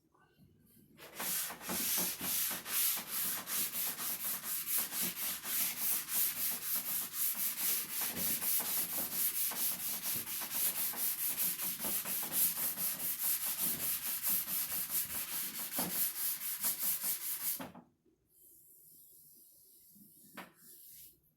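Sandpaper rubbed by hand over the wood of a cedar chest in quick, even back-and-forth strokes, stopping near the end.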